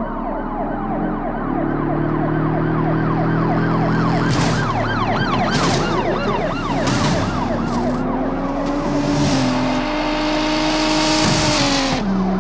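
Siren wailing in quick, repeated rising-and-falling sweeps, over steady held tones that shift in pitch a few times, with several short hissing bursts.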